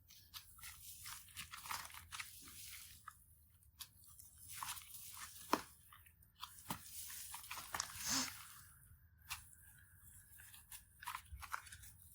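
Slime being squeezed and stretched by hand, giving quiet irregular crackling, crunching pops and sticky clicks.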